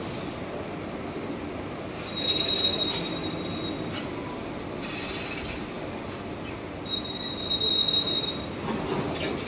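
Indian freight train of open box wagons rolling past, with a steady rumble of wheels on rail. A high, steady wheel squeal comes in about two seconds in and again about seven seconds in, and a few sharp clacks sound as the wheels cross rail joints.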